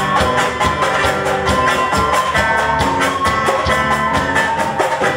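Youth ensemble of recorders and acoustic guitars playing a tune: held melody notes over a steady strummed beat.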